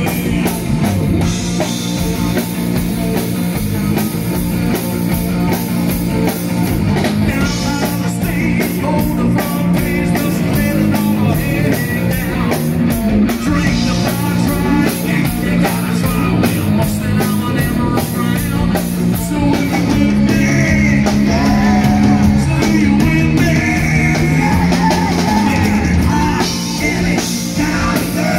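Live rock band playing: electric guitar, bass guitar and drum kit, with a singer's vocals.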